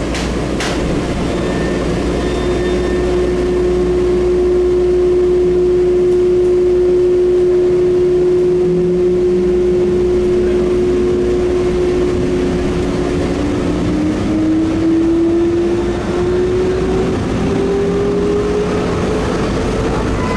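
Bombardier Innovia APM 256 rubber-tyred people-mover train pulling away from a station: a steady electric hum, then from about halfway through a whine that climbs in pitch as the train gathers speed, over the rumble of the running gear.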